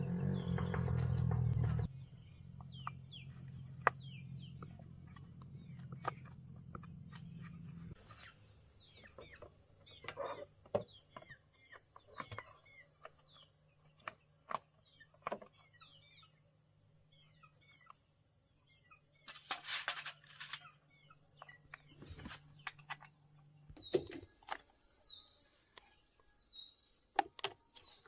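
Chickens clucking and small birds chirping, with scattered short knocks; background music cuts off about two seconds in.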